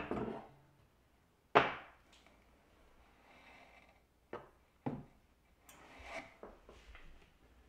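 Objects handled on a wooden tabletop: one sharp knock about a second and a half in, as a bamboo plate holder is set down, then two lighter knocks and soft rustling as a white metal wire basket is picked up and handled.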